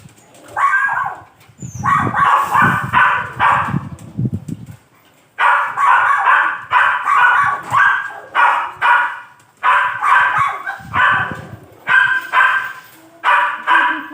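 A dog barking and yelping repeatedly in quick runs of short, high-pitched yelps, about three a second, with brief pauses between the runs. A low rumble sounds under a couple of the runs.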